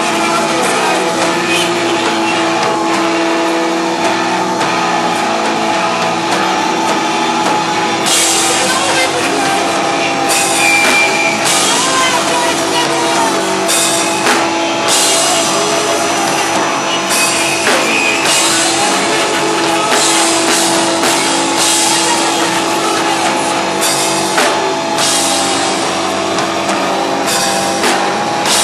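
Live rock band playing loud through a small, crowded room, with a dense, steady wall of music and repeated cymbal crashes from about eight seconds in.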